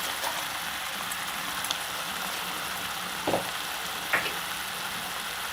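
Thickened tomato sauce with fried onion sizzling steadily in a pan on the heat, with two light clicks a little past the middle.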